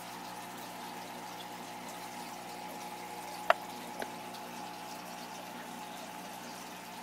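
Aquarium aeration bubbling with a steady hum from the tank equipment, interrupted by a sharp, loud click about three and a half seconds in and a fainter click half a second later.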